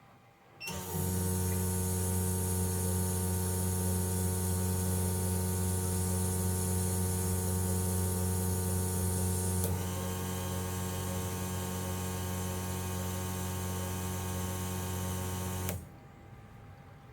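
Fuel injector test bench running a set of Grams 1000cc injectors: a steady mechanical drone of pump and rapidly pulsing injectors. It starts abruptly, changes slightly and gets a little quieter about ten seconds in, and cuts off suddenly near the end.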